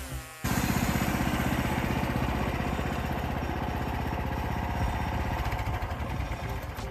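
Engine running steadily with a fast, even firing pulse, coming in abruptly about half a second in.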